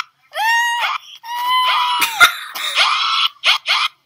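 High-pitched human screaming: several squeals in a row, each lasting up to about a second, with breathy, hissing sounds between them.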